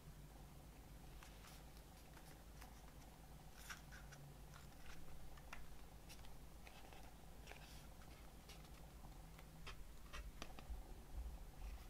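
Faint, scattered clicks and light rustles of a cardboard fold-out CD case being handled and its panels unfolded.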